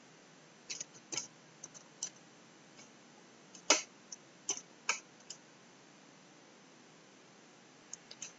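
Computer keyboard keystrokes: about a dozen irregular, sharp clicks over the first five seconds, then a quiet stretch and two more clicks near the end.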